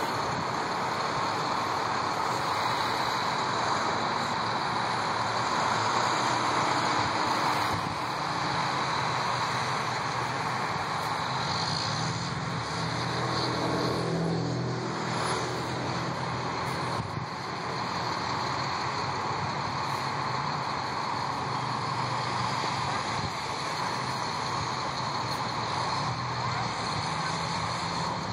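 A line of school buses running and pulling away one after another: a steady mix of engine and road noise, with the low engine hum strongest about halfway through.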